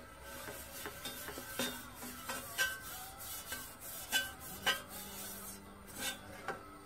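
A wad on a wooden handle rubbing and scraping over the tinned inside of a copper pan during retinning, with about six sharp metallic clinks as it knocks against the pan. Background music with held notes joins about two-thirds of the way in.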